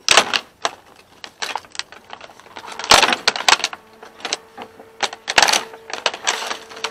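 Stiff clear plastic packaging crackling and clicking as it is pried apart by hand, with three louder bursts of crackling spread through.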